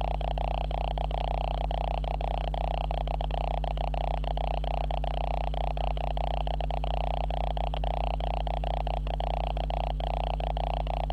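Recording camera's own electrical noise: a steady, loud buzzing hum with a fast, uneven flutter in it, unchanging throughout.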